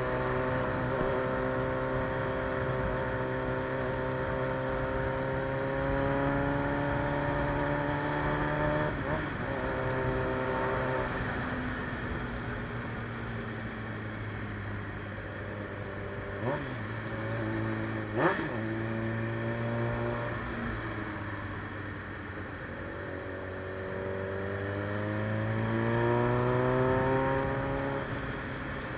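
Suzuki Bandit 600's carbureted inline-four, fitted with a straight-pipe exhaust, running while riding; its pitch climbs slowly and drops off twice as the throttle is opened and closed. Two short sharp knocks come about halfway through, the second louder.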